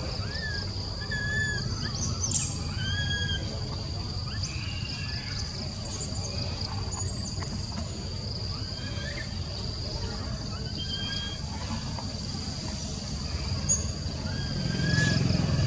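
Outdoor ambience of short, arched bird chirps at several different pitches, about one a second, over a steady high-pitched drone and a low rumble.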